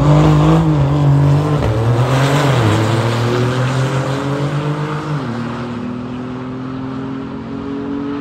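Drag-racing cars launching and accelerating hard away down the strip. The engine note climbs, drops at a gear change about two seconds in and again about five seconds in, and fades as the cars pull away.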